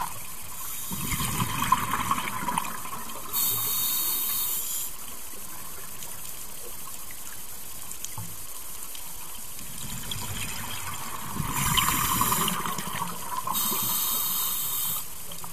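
Scuba diver breathing through a regulator underwater: twice, a bubbling exhalation is followed by a short hiss of inhalation through the demand valve.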